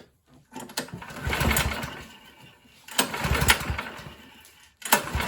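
Recoil starter of a 2012 Troy-Bilt 21-inch four-stroke snowblower pulled three times, the engine cranking over briefly on each pull and dying away without catching. It is choked and primed but won't start, which the owner puts down to old gas having gummed up the carburetor.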